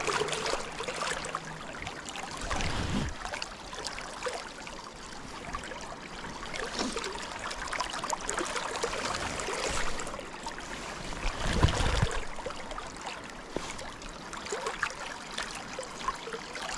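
Swift river current rushing and lapping along the bank, a steady wash of water. Two brief low rumbles break in, about three seconds in and again about twelve seconds in.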